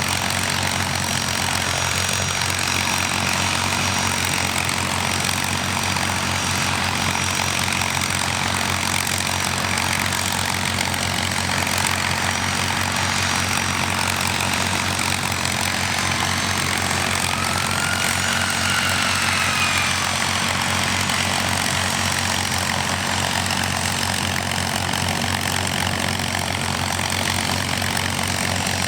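XP-82 Twin Mustang's two V-12 piston engines running steadily, propellers turning. About two-thirds of the way through, a faint whine rises and then falls.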